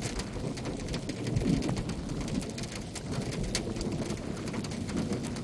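Large, scattered raindrops from a thunderstorm pattering close to the microphone: many sharp, irregular drop impacts over a steady background of rain noise.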